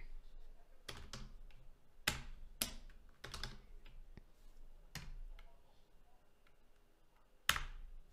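Computer keyboard keystrokes: a handful of separate key taps spaced out, with the loudest one near the end.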